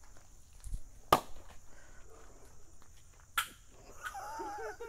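Two sharp pops about two seconds apart: film-canister lids blowing off as Alka-Seltzer fizzing in runny paint builds pressure inside. Near the end a wavering, voice-like sound begins.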